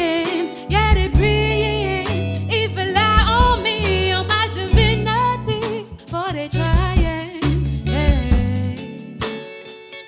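A live band plays while a woman sings long sliding, bending notes at the microphone, over electric bass, drum kit, electric guitar and keyboard. Her singing thins out near the end.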